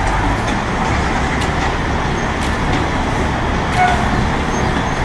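Steady background rumble and hiss with a few faint clicks, of the road-traffic kind.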